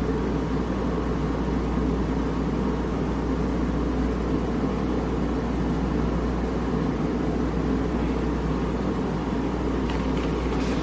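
Steady low hum with a broad hiss, unchanging throughout, like a running appliance or room noise. A faint rustle comes near the end.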